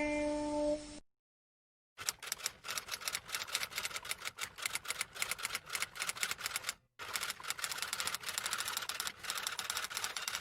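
Typing sound effect: rapid keystroke clicks, several a second, that start about two seconds in after a short musical tail dies away, and pause briefly about two-thirds of the way through.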